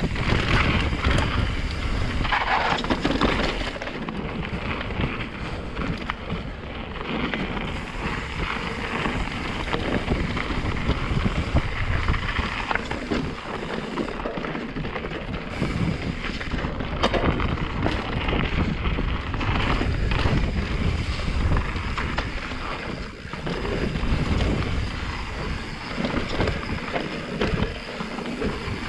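Santa Cruz Megatower mountain bike descending a rough enduro trail at speed: wind rushing over the action-camera microphone, tyres rolling over rock and dirt, and the bike rattling and knocking over bumps throughout.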